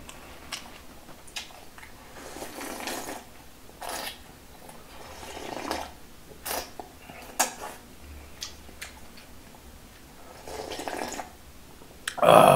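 Eating sounds: slurping and sipping kimchi stew broth straight from the bowl, with light clicks of chopsticks against the dishes, and a louder clatter of tableware near the end.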